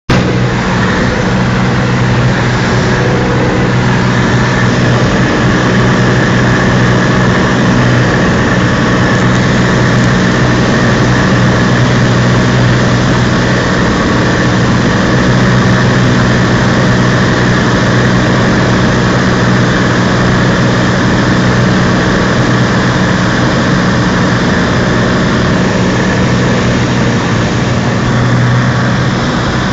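Cessna 206's six-cylinder piston engine and propeller running steadily in flight, heard inside the cabin as a constant drone with airflow noise.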